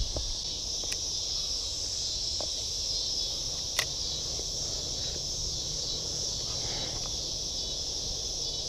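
Steady high-pitched drone of an insect chorus. There is a low knock at the start and a single sharp click about four seconds in.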